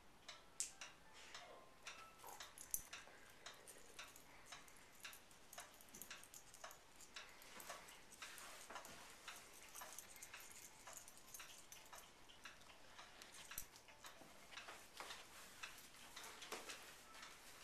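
Standard poodle chewing and gnawing at play: faint, irregular clicking throughout.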